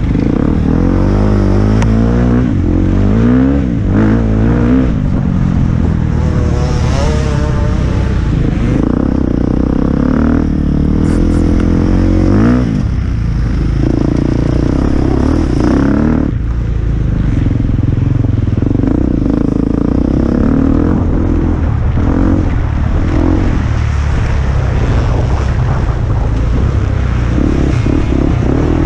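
Enduro dirt bike engine revving hard as it is ridden, its pitch climbing and dropping again and again with throttle and gear changes, close to the rider's helmet-mounted microphone.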